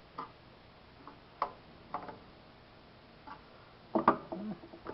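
Scattered light clicks and taps from handling the hinged front door of an Automate handpiece maintenance system, with a louder clatter of knocks about four seconds in.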